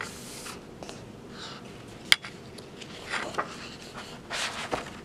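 Pages of a paperback picture book being turned and handled by hand: soft paper rustles with a sharp tap about two seconds in, the loudest rustle coming near the end.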